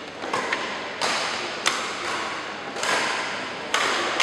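Badminton rackets striking shuttlecocks in rallies: about six sharp cracks at irregular intervals, each echoing in a large hall.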